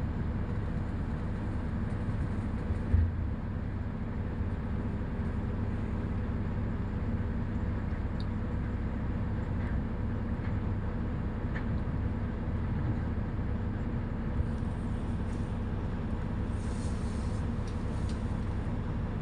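Diesel engines of heavy dump trucks running, heard from a distance as a steady low rumble, with a single thump about three seconds in.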